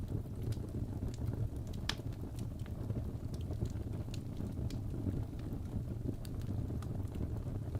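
Wood fire burning in a fireplace: a steady low rumble of the flames with irregular sharp crackles and pops, one louder pop about two seconds in.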